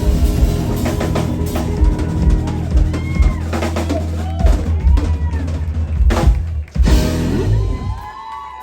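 Live rock band with a drum kit hitting the final accents of a song, with kick and snare strikes over held bass and guitar notes. The band stops about three-quarters of the way through and the sound falls away.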